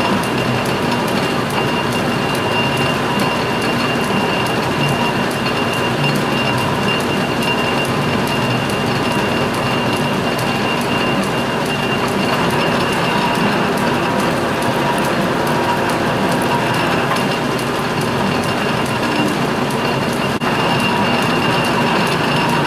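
Metal lathe running under power with its gear train engaged for thread cutting, the bit taking a light threading pass in an aluminum bar. Steady running with a high whine over a fine mechanical rattle.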